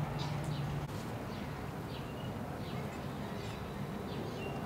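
Small birds chirping: short, falling high chirps about twice a second, over a steady low hum.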